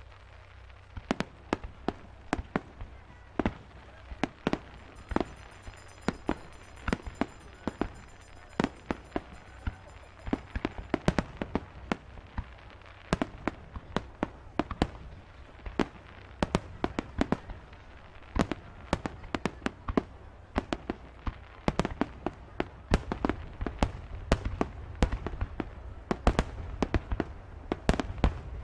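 Fireworks going off: a long irregular run of sharp bangs and pops over a low rumble, coming thicker and faster toward the end.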